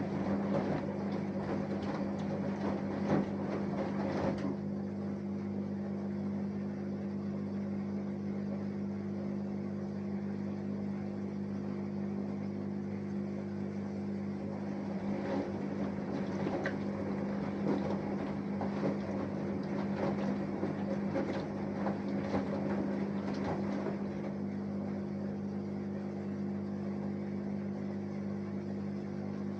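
Samsung Eco Bubble 6.5 kg inverter-motor washing machine running a wash: a steady hum with stretches of irregular swishing near the start and again in the middle.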